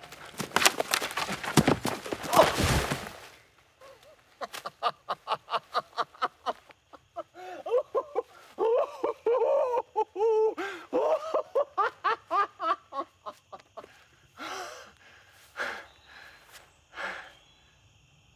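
A loud rustling rush for about the first three seconds. Then a man pants and gasps hard for breath, in quick even breaths that turn into voiced, heaving gasps and thin out to a few separate gasps near the end.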